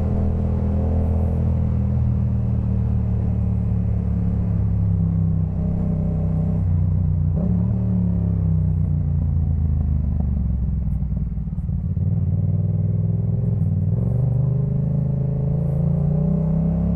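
Yamaha MT-07's parallel-twin engine through a Jeskap K4 full aftermarket exhaust, running on the road. The revs hold fairly steady, dip about halfway through, and climb steadily near the end.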